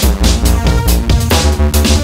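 Electronic dance music with a heavy, steady beat and deep bass.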